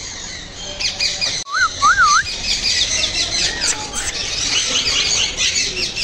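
Flock of caged parrots, ring-necked parakeets among them, chirping densely without a break. Two clear up-and-down whistles stand out about one and a half seconds in, and a falling whistle about a second and a half later.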